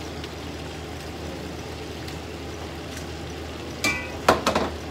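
Squash pieces and other vegetables frying in a stainless-steel wok, a steady sizzle, with a few sharp knocks about four seconds in.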